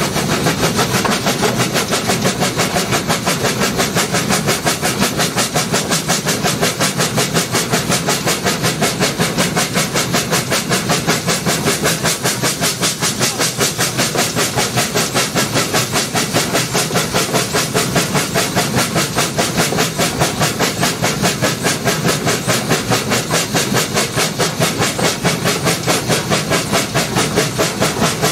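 Two narrow-gauge steam locomotives double-heading a train, heard close up from the leading engine: a steady, rapid run of exhaust beats over the hiss of steam.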